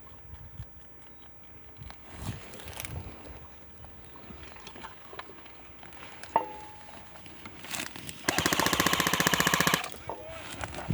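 Airsoft gun firing a rapid full-automatic burst that lasts about a second and a half, near the end. A single sharp click comes a couple of seconds before it.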